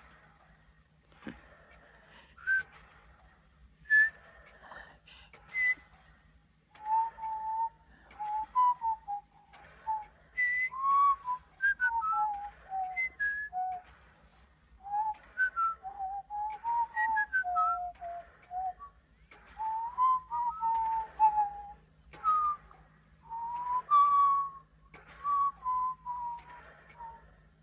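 A man whistling a wandering, tuneless melody through pursed lips. A few short separate notes come first, then steady whistling from about seven seconds in, the pitch moving up and down.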